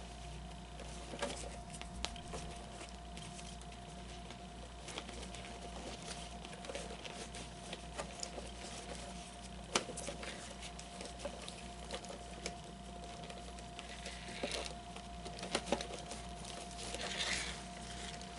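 Cloth rustling with scattered light clicks and taps as hands work an animatronic figure's shirt into its pants, over a faint steady hum.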